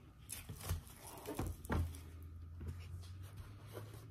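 Faint eating sounds: a string of short, soft crunches and mouth clicks as fried onion rings are chewed, with a low steady hum coming in about two seconds in.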